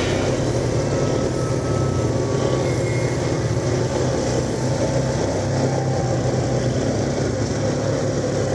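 ATV engine running steadily under way on a rough dirt trail, heard from the machine the camera is mounted on.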